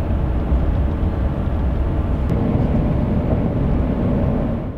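Road and engine noise heard inside the cabin of a moving Chevrolet: a steady low rumble at driving speed.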